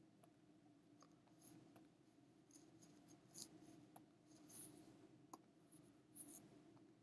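Faint scratching of a pen stylus dragged across a graphics tablet in short strokes, with a few light taps, over a low steady hum.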